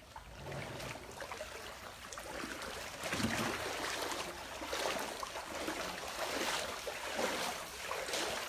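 Shallow muddy floodwater sloshing and splashing in uneven surges about once a second, as someone wades through it. It grows louder about three seconds in.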